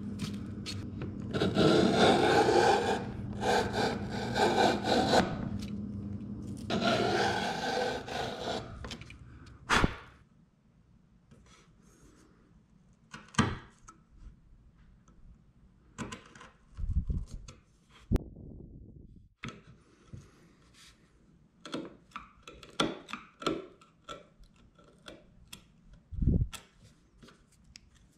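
Bench chisel paring a stopped dado in cherry by hand: several long scraping strokes in the first nine seconds, a sharp knock about ten seconds in, then quieter scattered clicks and knocks as the chisel works the groove.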